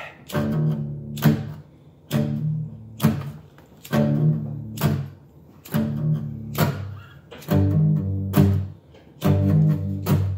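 Acoustic guitar strummed in a steady rhythm, about one stroke a second, each chord ringing on with a strong low bass between strokes.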